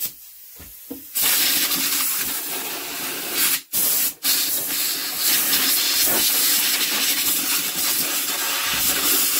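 Compressed-air blow gun hissing as it blows out the cooling fins of an air-cooled BSA engine. It starts about a second in and runs steadily, cutting out twice briefly around the middle.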